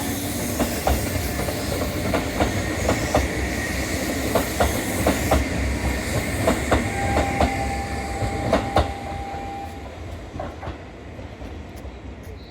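Shibayama Railway 3500 series electric train departing, its wheels clicking over the rail joints in groups of knocks as the cars roll past. A thin steady whine is heard for a few seconds in the middle, and the sound fades as the train draws away.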